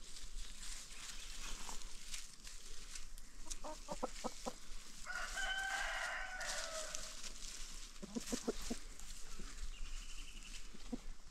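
Free-range chickens clucking in short runs, with one long rooster crow about five seconds in.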